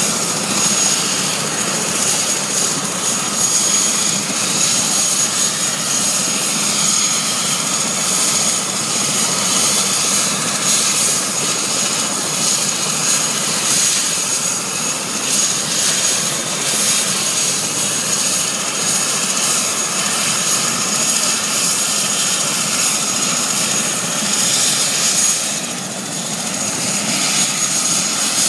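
Fire department helicopter running on the ground with its rotor turning, a steady turbine whine over the engine and rotor noise. It eases briefly near the end.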